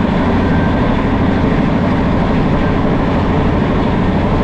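Express passenger train running at speed: the steady rumble and rattle of its wheels on the track.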